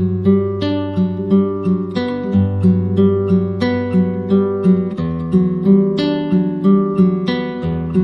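Background music: an acoustic guitar playing a steady rhythm of plucked notes.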